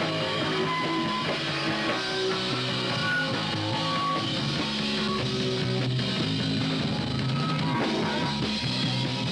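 Punk rock band playing live with distorted electric guitar, bass and drums, in an instrumental stretch between sung lines.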